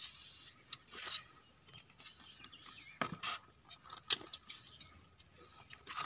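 Scattered light clinks and knocks of steel hydraulic-cylinder parts and seal rings being handled during a seal change on a PC200 excavator boom cylinder, with one sharp clink about four seconds in.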